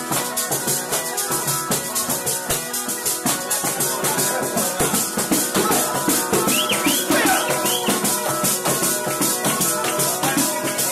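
Calabrian zampogna (bagpipe) playing a tarantella, steady drones held under the chanter's melody. A tamburello (jingled frame drum) keeps a fast, even beat.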